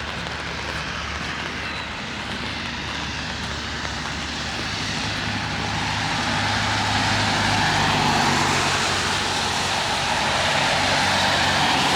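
A vehicle engine with a steady rushing sound, swelling louder over several seconds and then holding, as of a vehicle or aircraft passing.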